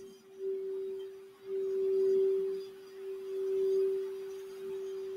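Crystal Alchemy singing bowl tuned to the throat chakra, sung by working its mallet around the rim. It holds one steady pure tone that swells louder and softer several times.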